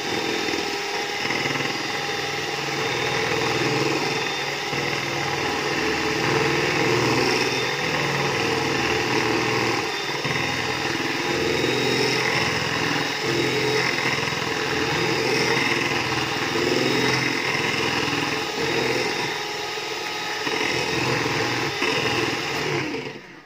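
Handheld electric mixer running at high speed, its beaters whipping cream in a bowl as the cream thickens; the motor switches off near the end.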